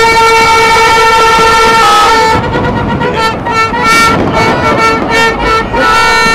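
Horns blown in a long, steady held note, with a second horn sounding briefly about two seconds in.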